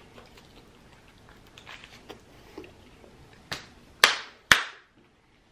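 Faint chewing, then a softer smack and two loud hand claps about half a second apart near the end.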